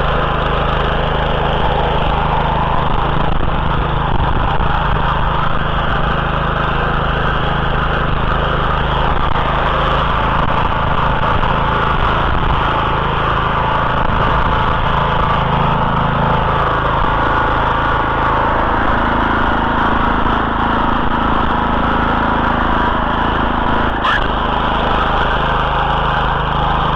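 Oka walk-behind tiller with a Lifan single-cylinder petrol engine running steadily under load while its rotary tines churn the soil; the engine note dips slightly a little past halfway.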